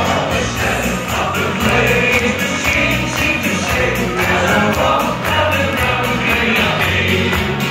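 A man singing an upbeat song into a microphone over loud amplified music, with the audience singing along and clapping in time.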